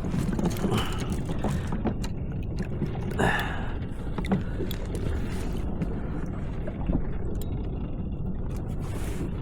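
Ocean water lapping and slapping against a plastic fishing kayak's hull, over a steady low rumble of wind on the microphone, with scattered small knocks and clicks. About three seconds in there is a brief louder rush of noise.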